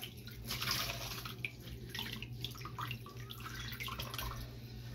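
Water splashing and dripping in a filled bathroom sink, irregular small splashes as hands scoop water up to rinse cream off the face.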